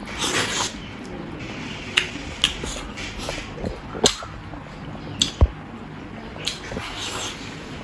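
About six separate sharp clicks and light knocks over a low, even background. The loudest is a deeper knock about five and a half seconds in.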